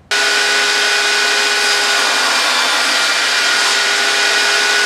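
Table saw running at full speed with a steady whine from its motor and spinning blade. It is set up to trim the ends of two wooden pieces level.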